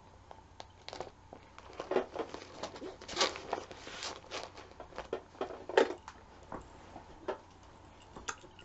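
Paper being handled and shuffled by hand: a run of irregular rustles, crinkles and light knocks, busiest in the middle and thinning to a few clicks near the end.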